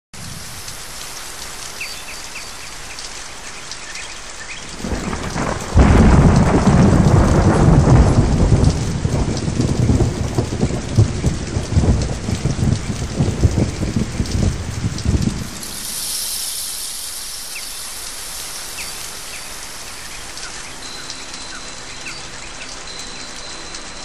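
Scuba diver breathing through a regulator underwater. About five seconds in comes a loud rush of exhaled bubbles lasting about ten seconds, then a short high hiss of an inhalation, with faint clicks in the background.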